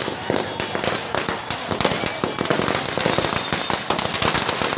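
Firecrackers going off on the ground in a rapid, continuous run of sharp cracks.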